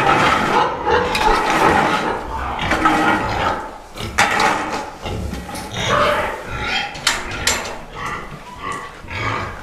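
Pigs in a sow barn squealing and grunting, loudest over the first few seconds, with a few sharp clanks among them.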